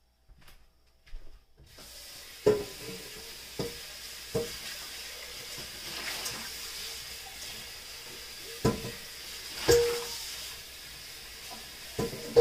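Kitchen sink tap turned on about two seconds in and running steadily, with several sharp clinks and knocks of dishes that ring briefly.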